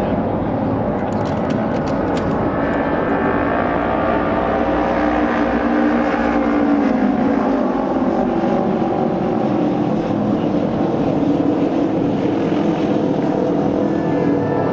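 Japanese auto-race motorcycles, 600cc parallel-twin racing engines, running at speed together around the oval. It is a loud, steady, dense engine drone whose pitch lifts a little about halfway through and eases off later.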